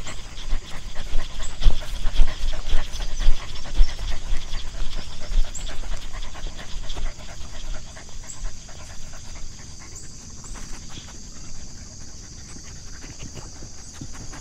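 A dog panting rapidly, loudest at first and fading off about halfway through, over a steady high hiss.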